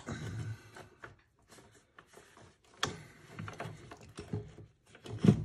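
Scattered clicks and knocks of a BMW N55's plastic turbo charge pipe being wiggled and worked loose among the engine parts, with a sharper knock near the end.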